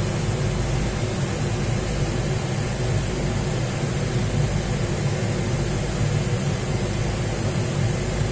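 Steady low hum and even hiss inside an enclosed Ferris wheel gondola while the wheel slowly turns.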